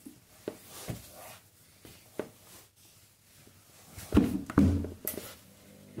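A few scattered light clicks, then a cluster of heavy thumps about four seconds in and one more shortly after: someone moving and crouching down close to the microphone.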